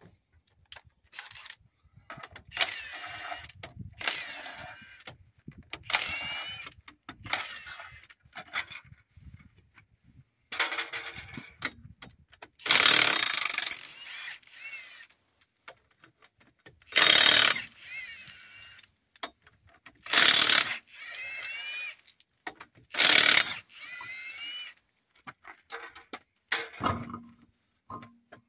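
Milwaukee Fuel cordless impact wrench hammering lug nuts loose on a car wheel in a series of short bursts, several beginning with the motor's rising whine.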